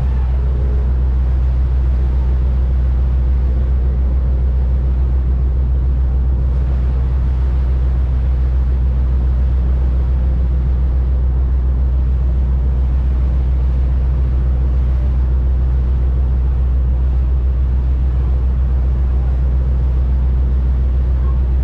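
Boat engine droning steadily, heard from on board, a constant low hum with a hiss of wind and water over it.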